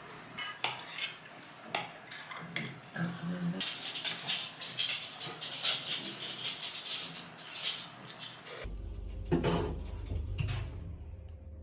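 Metal cutlery and serving utensils clinking and scraping against ceramic plates as food is served. About three-quarters of the way through, the clinking stops and a low steady hum with a few knocks takes over.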